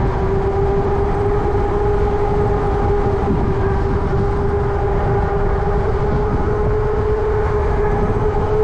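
E-bike motor whining at one steady pitch under heavy wind rumble on the microphone while riding at a steady speed.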